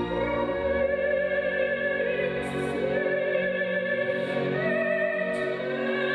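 Classical music with an operatic voice singing long held notes with vibrato over a sustained instrumental accompaniment.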